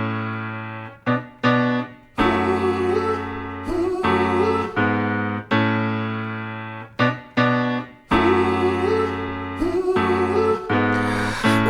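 Music: a piano intro of held chords, each struck and left to fade, with short breaks between phrases and a melody line on top.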